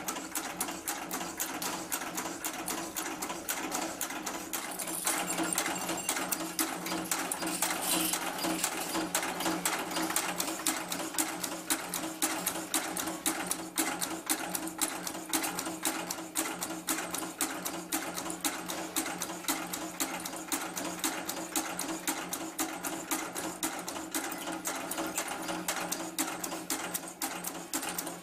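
Automatic packing-clip making machine running: a rapid, even clatter of its strokes, several a second, over a steady motor hum.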